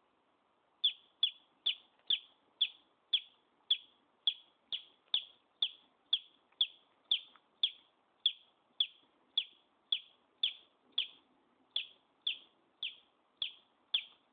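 Baby chick peeping: a steady run of short, high, slightly falling peeps, about two a second, starting about a second in.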